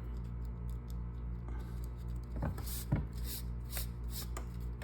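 Cord rubbing and rustling in a few short strokes as it is drawn through the strands of a hand-tied knot, over a steady low hum.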